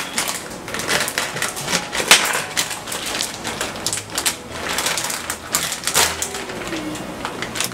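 Crinkly plastic bag of mixed vegetables being handled and pulled at to tear it open, with a run of crackling rustles and sharp clicks.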